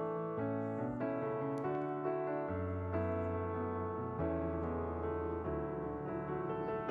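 Background piano music: a gentle keyboard melody over sustained bass notes.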